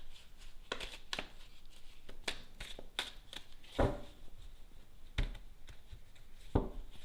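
Lenormand cards being handled, shuffled and laid out: a run of short soft flicks and taps of card on card, with three heavier thuds in the second half as cards meet the table.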